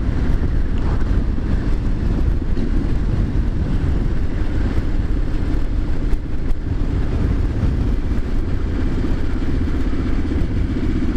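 Triumph Street Scrambler 900's 900 cc parallel-twin engine running steadily while the motorcycle cruises along the road.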